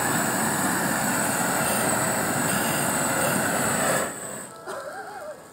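Hose-fed propane blow torch burning with a steady, loud hiss of gas and flame, which drops away sharply about four seconds in as the torch is turned down or pulled back.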